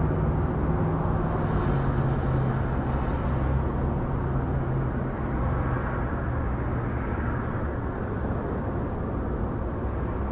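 Steady rumble of motor-vehicle traffic with an engine hum that drops in pitch about two seconds in, as a vehicle passes.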